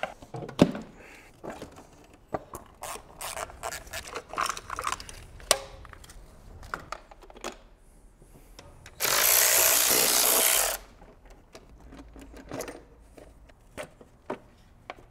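Hand tools and metal engine parts clicking and clattering as the valve cover is taken off a V8. About nine seconds in comes a steady hiss lasting nearly two seconds.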